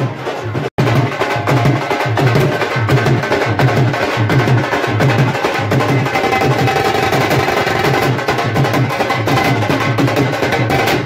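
Several dhol barrel drums beaten with sticks in a fast, steady rhythm, with a deep repeating beat under sharp stick clicks. The sound cuts out briefly just under a second in.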